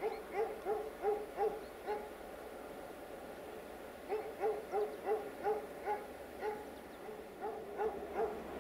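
A dog barking in quick runs of short barks, about three a second, with a pause of about two seconds before the barking starts again.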